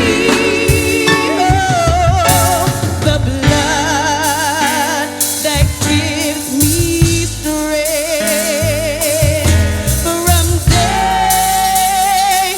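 Gospel song: singing with heavy vibrato over a band with drums.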